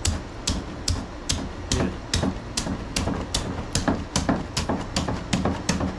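A knife cutting through the hard, armored scales of an alligator gar's skin: a steady series of sharp cracking clicks, about two to three a second.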